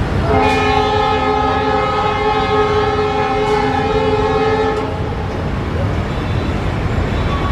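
Locomotive air horn sounding one long, steady blast of about four and a half seconds, several tones at once, over a constant low rumble of locomotives in the yard.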